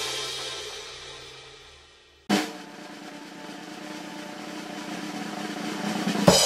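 Intro music fading out, then a sudden drum hit about two seconds in followed by a sustained swelling musical sound that builds to a second hit near the end.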